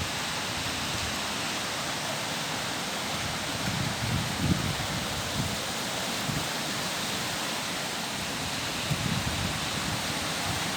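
Storm with high winds: a steady rushing hiss, with low gusts buffeting the microphone about four seconds in and again near the end.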